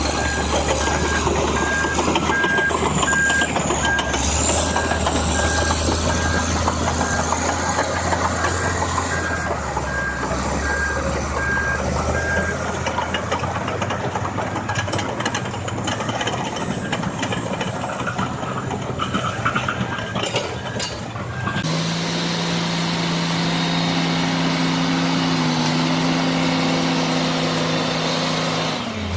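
Heavy construction machine's engine running with a reversing alarm beeping at a steady, regular rate. About 22 s in, the sound cuts to another machine's engine running at a steady pitch.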